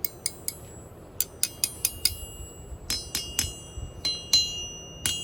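A new 125 lb Holland anvil of H13 tool steel struck in quick runs of light taps, about twenty in all, each leaving a clear high ring. It makes a nice sound, the bright ring of a freshly cast, heat-treated anvil.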